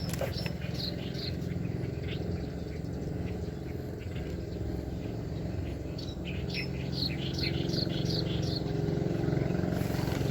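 A small bird chirping in quick runs of short high calls, a few near the start and a longer run of about a dozen from about six seconds in, over a steady low engine hum that grows louder toward the end.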